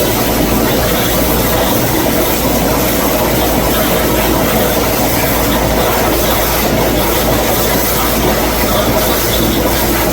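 CNC plasma table's torch cutting: a loud, steady hiss with a low hum beneath it.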